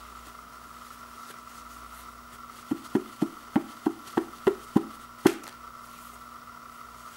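Toilet paper roll knocking against a wooden floor as sheets are tugged off it: a quick run of about eight soft knocks in two seconds, then one sharper knock.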